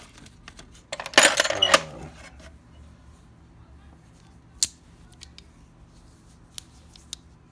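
Metal hand tools (sockets and wrenches) clinking and clattering as they are handled and moved around in a cluttered toolbox: a burst of rattling about a second in, then a few separate clinks.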